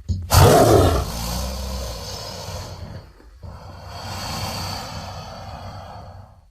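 Designed Tyrannosaurus rex creature sound effect: a loud, rough call starting about a third of a second in and fading over a couple of seconds, then after a short break a long breathy exhale.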